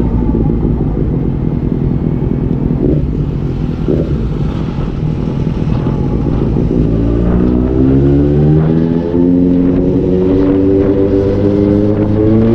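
Suzuki GSR750's inline-four engine running low on the overrun, then accelerating from about seven seconds in, its pitch rising steadily. There is a brief dip in level about nine seconds in.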